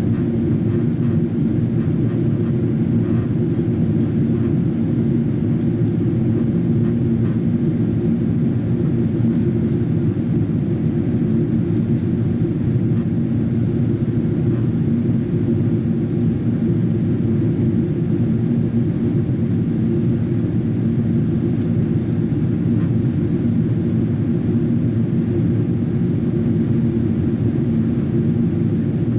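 Cabin noise inside a Boeing 777-200ER in flight: the steady low rumble of engines and airflow over the fuselage, even and unbroken throughout.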